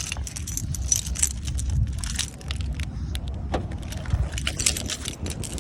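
Metal clinking and rattling with rustling, from a car seat's buckles and latch hardware being handled during installation.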